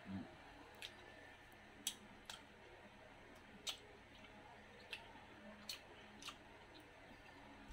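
Faint eating sounds: close mouth clicks and smacks from chewing, about seven sharp clicks at uneven intervals over quiet room tone.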